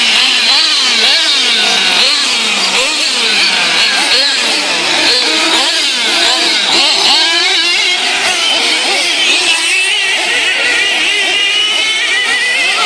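Several racing engines revving up and down together, their pitches rising and falling over one another without a break.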